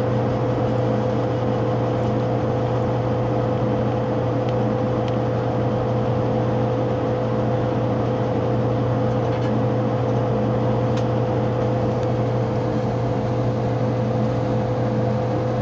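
A steady mechanical hum holding several fixed pitches, at an unchanging level, with a few faint clicks.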